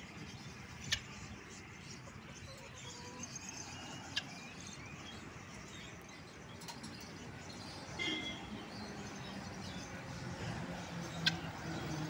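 Faint steady outdoor background noise with a few brief chirps from caged birds and a few sharp clicks.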